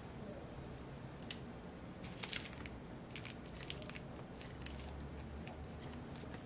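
Faint, scattered small clicks and light rustling of hands handling laptop parts and components, with a short cluster of clicks about two and a half seconds in.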